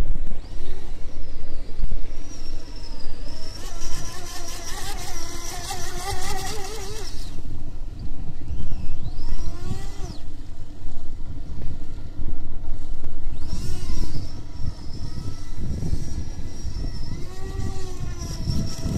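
The electric motor of a modified WLtoys WL911 RC racing boat whines as the boat runs at speed across the water. Its pitch rises and falls several times with the throttle. A low rushing noise sits underneath.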